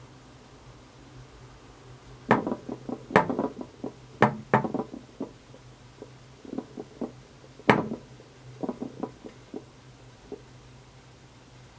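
A cat batting a loose trackball ball around: the ball rolls and knocks in clustered clicks and taps, the loudest from about two to five seconds in and again near eight seconds, with quieter taps later.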